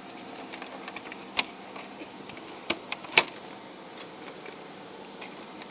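Small clicks and knocks as the plastic retaining clips inside a PlayStation 3 are pushed and released and its parts handled, the sharpest snap a bit over three seconds in, over a faint steady hum.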